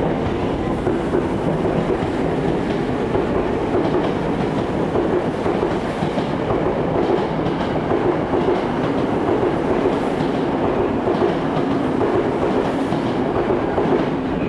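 Tokyo Metro 07-series electric commuter train departing and gathering speed close by, a steady rumble of cars rolling past with wheels clacking over the rail joints.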